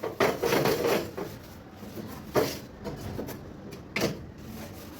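Kitchen cleanup clatter: about a second of clattering and scraping near the start, then two sharp knocks about a second and a half apart, as of things being set down or a cupboard closing.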